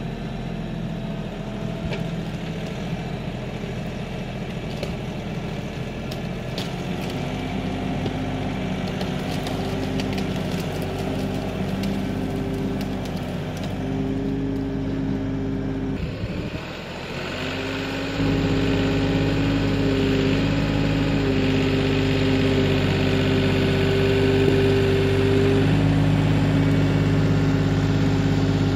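Kioti NX6010 tractor's diesel engine working under load as it pulls out a large tree, its pitch stepping up and down with the effort. After a brief drop about two-thirds of the way through, it runs louder and steadier.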